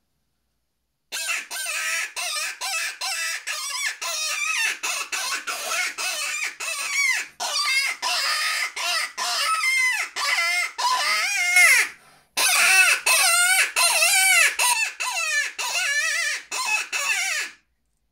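Open-reed predator call, refitted with a new reed, blown to imitate a wounded rabbit's distress cry: a long run of loud, wavering squeals, about three a second, with a short break about twelve seconds in. The caller cups his hands around the call.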